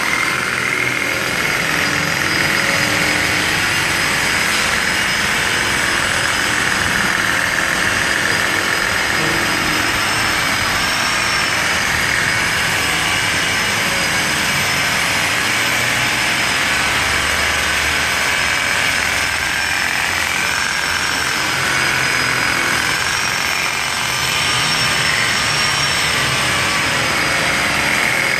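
Electric paint polisher with a foam pad running steadily against car paintwork during paint correction, its motor giving a continuous whine whose pitch wavers slightly.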